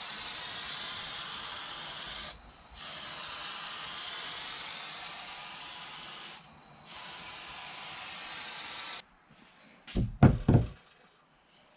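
Steady, high spraying hiss, cut off briefly twice and stopping about nine seconds in. A few dull thumps follow near the end.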